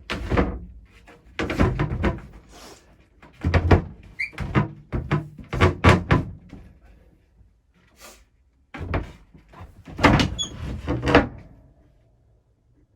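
A part being slid into a slot and tapped home: clusters of knocks, thuds and scraping, with short gaps between them, dying away near the end.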